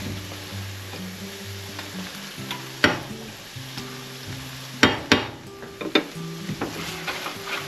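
Diced vegetables and ham sizzling in a frying pan with a pat of butter, stirred with a spatula. A few sharp clicks of the spatula against the pan come about three seconds in and again around five to six seconds in.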